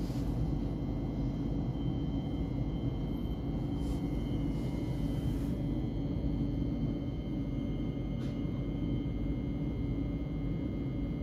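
Cabin sound of a Thameslink Class 700 electric train on the move: a steady low rumble from the running gear, with thin, steady high whining tones from the traction equipment.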